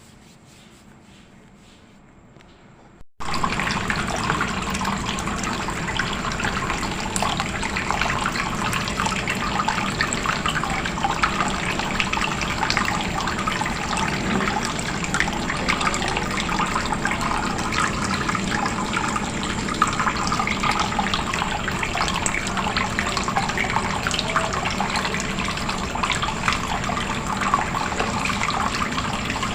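Water splashing and trickling steadily from a small homemade plastic-bottle waterfall fountain fed by a mini submersible pump, starting abruptly about three seconds in.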